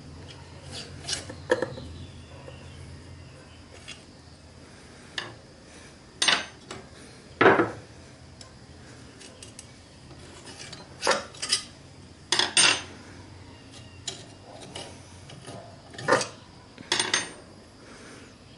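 Long steel through-bolts being worked out of an electric motor's housing and set down on a wooden bench: a string of metal clinks, scrapes and short knocks, the loudest about seven and twelve seconds in.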